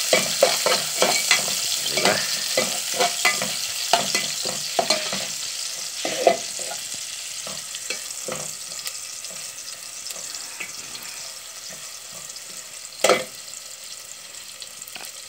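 Sliced onions sizzling in hot oil in a metal pot, with a metal spoon scraping and clinking against the pot as they are stirred. The stirring thins out after about seven seconds and the sizzling grows fainter. A single louder knock comes near the end.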